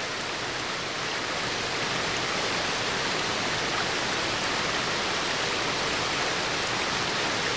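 Steady rush of white water tumbling over rocks in a mountain stream, rising a little in level about a second in.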